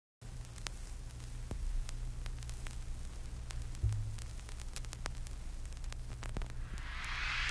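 Soundtrack intro: a steady low hum with hiss and scattered faint crackles, and a whooshing swell rising near the end.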